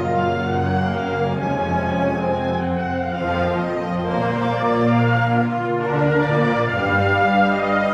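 Student concert band of woodwinds and brass playing held chords, with low brass and tubas carrying the bass line. It swells slightly about five seconds in.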